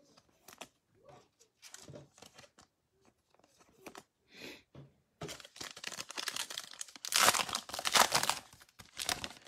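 Foil trading-card pack being torn open and crinkled, a dense crackling that starts about halfway through and is loudest near the end. Before it come faint clicks and shuffles of cards being handled.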